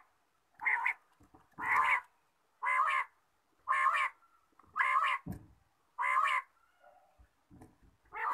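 A quail giving short, harsh calls about once a second, six in a row, then a pause before another near the end.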